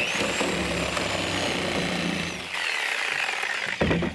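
Reciprocating saw with an all-purpose blade cutting through a plywood wall, running steadily, its pitch shifting partway through, then stopping with a knock near the end.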